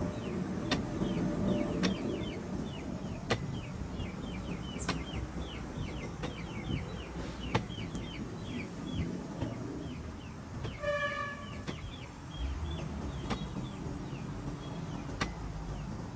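Hoe chopping into dry, clumpy soil, a dull strike about every second and a half. Chickens peep and cluck in the background, with a short squawk about two-thirds of the way through.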